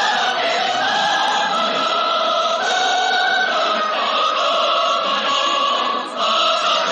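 A recorded choir singing a slow national anthem in long, held chords that change every second or two.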